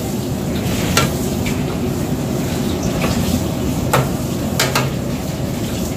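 Sliced onions sizzling in a metal frying pan as they caramelize with brown sugar and vinegar, with a steady hiss. A spatula stirs and scrapes through them, knocking sharply against the pan a few times.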